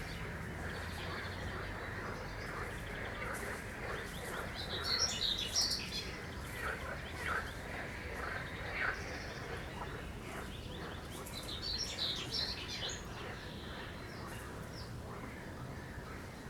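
A songbird singing in two bursts of rapid chirping phrases, about four and a half and eleven seconds in, with scattered single calls between, over a steady background chorus of croaking frogs.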